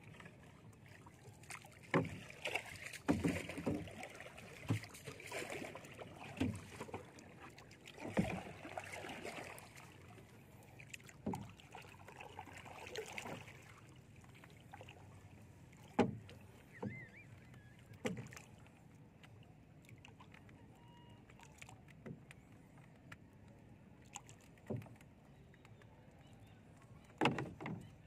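Paddle strokes splashing water beside a small wooden outrigger canoe, with sharp knocks of wood and gear against the hull. The splashing fades in the second half, leaving scattered knocks.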